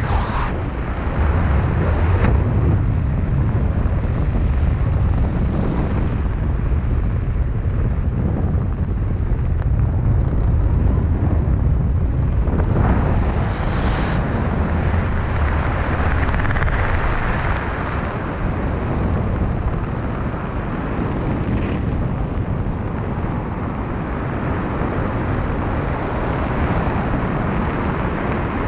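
Wind rushing over the microphone of a skydiver's first-person camera during flight under an open parachute canopy: a steady, heavy low rumble with a few brief sharper gusts.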